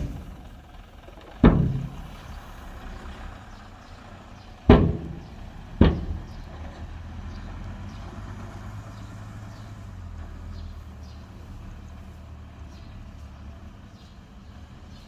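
Heavy diesel machinery running steadily with a low rumble, and three loud sharp bangs: one about a second and a half in, then two more close together around five and six seconds in.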